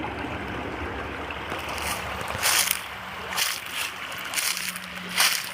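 Footsteps crunching through dry autumn leaves, about five steps in the second half, after a stretch of steady low rustling.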